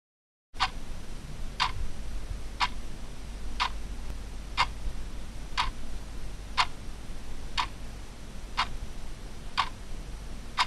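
Clock-style countdown ticking, one sharp tick a second, ten in all, over a low steady rumble; the ticks start about half a second in and stop just before the end.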